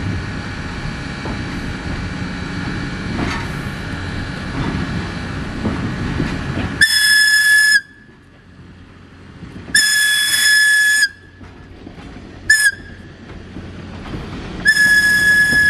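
Steam locomotive's whistle blowing the grade-crossing signal, long, long, short, long, on one steady pitch, the last blast held about two seconds. Before the first blast, the low rumble of the approaching train.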